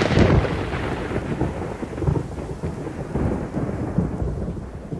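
Thunder sound effect: a long rolling rumble with a rain-like hiss, fading slowly after a sharp crack, with low rumbles flaring up again about two and four seconds in.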